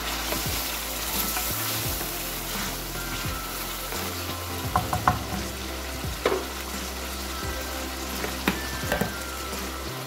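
Chicken pieces sizzling in hot oil and ginger garlic paste in a karahi, being stirred with a wooden spatula. In the second half come a few sharp knocks of the spatula against the pan.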